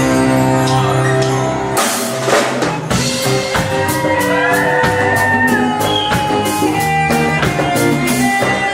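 Rock music played by a band, with a drum kit and guitar.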